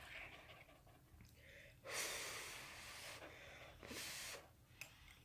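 Ramen noodles slurped into the mouth twice: a longer slurp about two seconds in and a shorter one about four seconds in.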